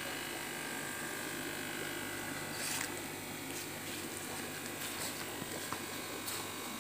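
Steady electric hum of the tank filtration pump motor, with a few faint clicks.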